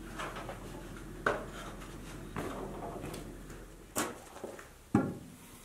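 A series of separate light knocks and clatters, about six in all, roughly a second apart, the sound of things being handled and set down.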